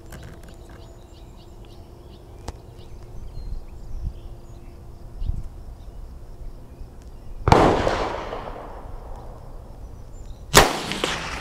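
Two shots from a scoped .22 WMR rifle, about three seconds apart, each a sharp crack followed by a fading echo.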